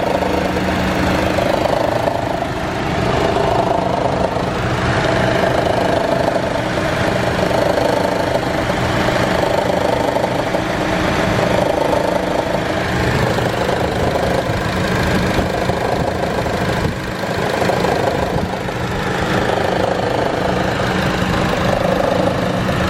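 2014 Chevy Cruze engine idling with a loud growling noise from under the exhaust manifold, the kind that comes on at idle with the A/C running. The growl swells and fades every two to three seconds over a steady hum. Its cause has not been found.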